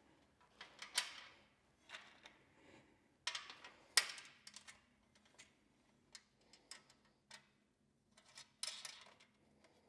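Scattered clicks, taps and light knocks of floorboard plates and their fasteners being handled and secured by hand, with the sharpest clicks about a second in and about four seconds in, small ticks between, and a short rattle near the end.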